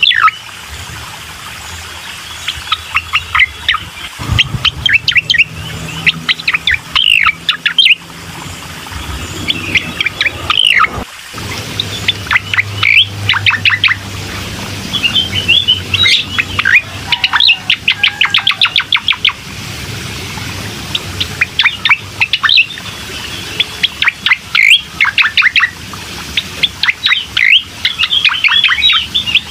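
Cucak koreng songbird singing: repeated bursts of fast chirps and trills, with a faint low hum underneath.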